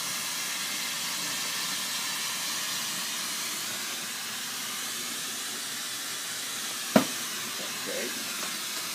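Glassworking bench torch flame hissing steadily, with one sharp knock about seven seconds in.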